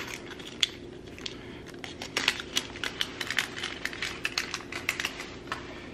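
Small steel nuts and washers clicking and clinking together as they are handled and picked out of a hardware packet: an irregular run of light ticks, thickest in the middle.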